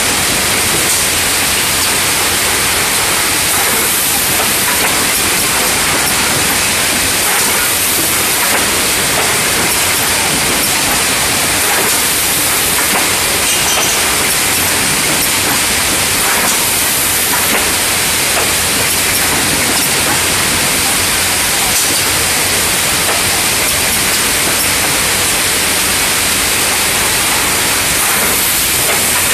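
Wrap-around case packer running: a loud, steady hiss of machinery with no clear rhythm.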